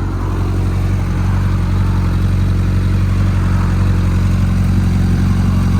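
Honda CBR1000RR's inline-four engine running at a steady low speed, its note holding even throughout.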